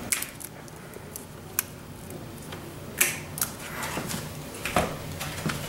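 Scattered sharp clicks and snips of small hand wire strippers, with rustling and a brief scrape of thin alarm cable being handled, about three seconds in.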